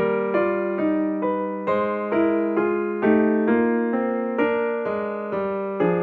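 Background music: an electric piano playing a melody of struck notes, about two a second, each fading after it is played.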